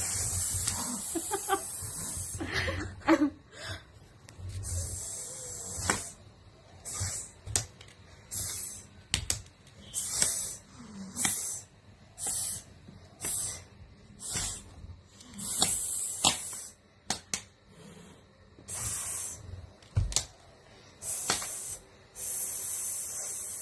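A cat hissing over and over in short bursts, each lasting from a fraction of a second to about two seconds, with a few faint clicks between them.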